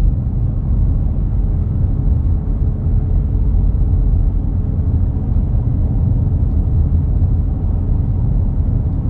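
Steady low rumble of a truck driving on a rough paved road, heard from inside the cab: tyre and road noise mixed with the engine.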